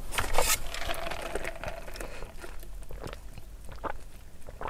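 Chewing and biting into a bacon quarter pounder close to the microphone: scattered soft crunches and mouth clicks over a faint low hum.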